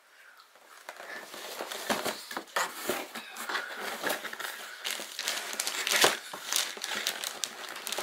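Plastic wrapping and cardboard packaging crinkling and rustling as parts are handled in an opened box. It starts about a second in and keeps going irregularly, with sharp crackles.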